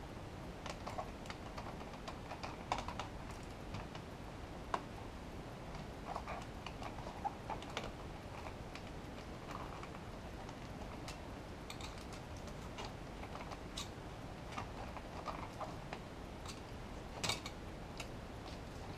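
Irregular small clicks, taps and scrapes of a screwdriver and plastic parts working against the aluminium case and circuit board of a Behringer Ultragain MIC2200 preamp as it is taken apart, with a few sharper clicks, the loudest near the end.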